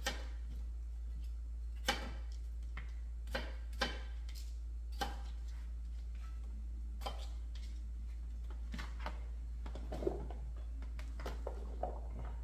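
Kitchen knife cutting a whole unpeeled potato on a thin plastic cutting board: irregular sharp knocks of the blade hitting the board, roughly one every second or two, over a steady low hum.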